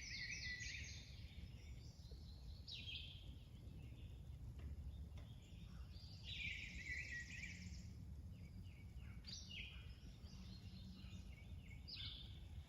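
Songbirds singing in short, high, chirping phrases every two to three seconds over a steady low outdoor rumble.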